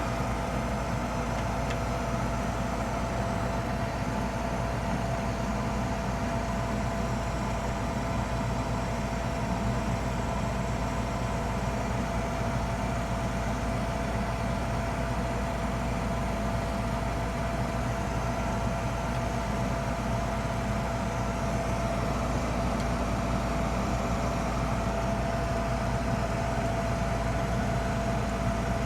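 Old gas furnace running, a steady mechanical hum with a constant whine that does not change.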